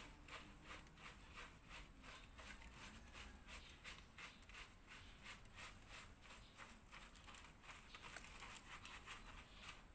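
Hands scrubbing shampoo lather into a wet dog's fur: faint, soft wet rubbing strokes repeating about two or three a second.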